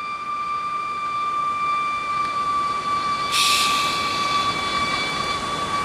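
Homemade 15 mm whistle rocket whistling in flight: one long, steady, high whistle that holds its pitch, with a short hiss about three and a half seconds in.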